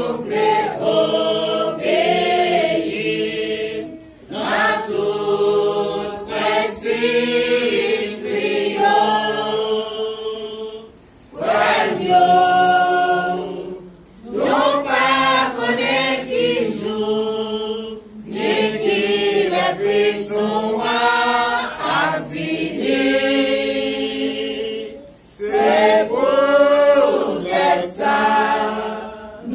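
A church congregation of mixed men's, women's and children's voices singing a hymn together, unaccompanied, in phrases of a few seconds with short breaks between them.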